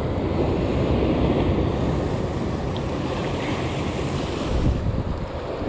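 Ocean surf washing and churning over rocks, with wind buffeting the microphone.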